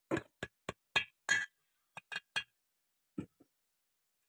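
Ball-peen hammer tapping an oil seal into its steel housing: about ten sharp metallic clinks in uneven groups, with a short pause just before three seconds in.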